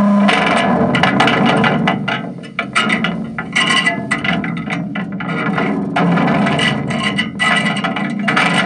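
Heavily distorted fuzz noise from a contact microphone on an aluminium shaving, run through an RMA Mudlark fuzz pedal: irregular surges of gritty scraping and rattling that cut in and out, changing in tone as the pedal's knobs are turned.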